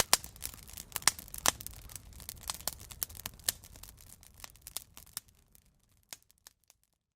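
Wood campfire crackling with irregular sharp pops, fading out over the last couple of seconds.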